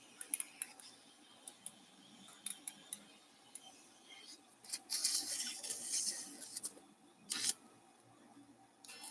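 Steel surgical instruments clicking and snipping in quick, separate strokes. About halfway through comes a hiss lasting some two seconds, and a short second hiss a little later.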